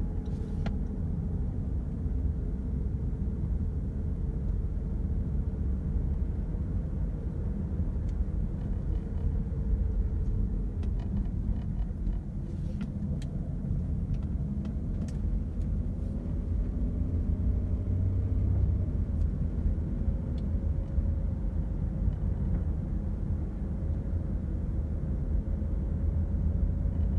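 Steady low road and engine rumble inside the cabin of a moving 2010 Mercedes GLK350 with its 3.5-litre V6, with a faint hum that sinks about ten seconds in and climbs again a few seconds later. The engine runs smoothly with no unusual noises on fresh oil.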